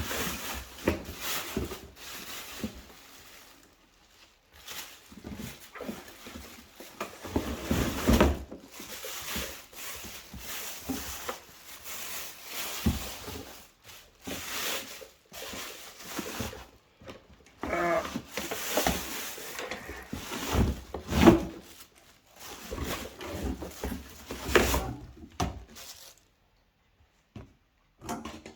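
Packaging rustling and crinkling in irregular bursts, with a few knocks, as a vacuum cleaner is unpacked from its box.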